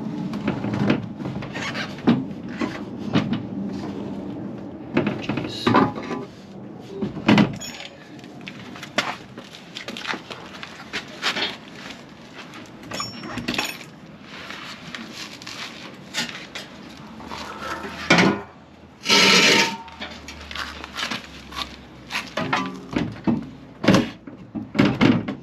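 Scattered knocks, clanks and thuds of tools and metal parts being handled while a wheel is fitted to a car, with one louder burst of noise lasting about a second near the end.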